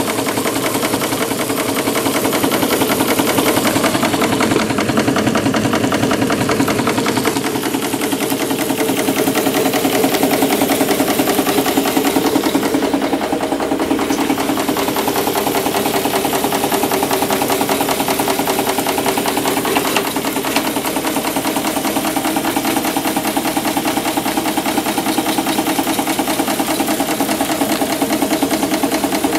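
Märklin 4159 twin-cylinder model steam engine running steadily on live steam, belted to a small dynamo: a fast, even beat of exhaust puffs and moving parts.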